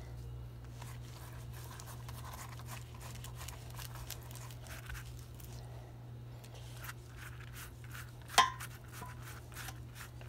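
Silicone pastry brush rubbing olive oil across folded flour tortillas on a metal baking tray: soft, scratchy brushing strokes. One sharp metallic clink about eight seconds in, over a steady low hum.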